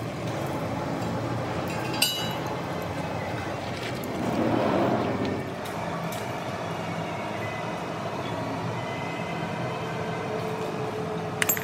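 Steady machinery hum, with a sharp metal clink about two seconds in and a few quick clinks near the end from the crane hook and lifting chain holding a cast iron pulley blank; the hum swells briefly a few seconds in.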